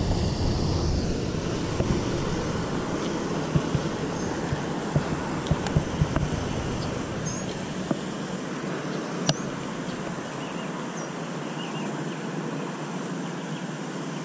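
Steady rush of water pouring over a concrete canal spillway, with a few sharp clicks partway through.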